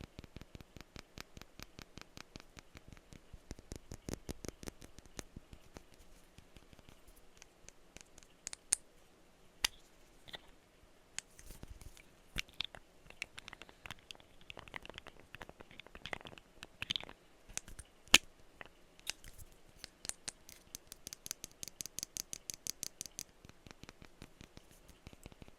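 Perfume bottles being tapped in quick runs of light taps, with a few sharper single taps. Near the end comes a fast run of taps with a bright ringing tone.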